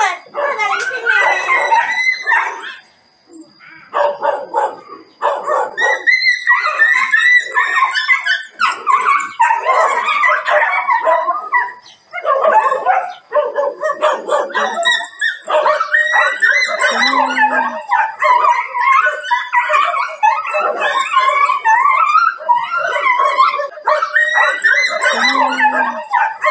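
Male dogs fighting over a female, a near-continuous tangle of yelps, howls and barks from several dogs at once, with a short lull about three seconds in and a brief break near the middle.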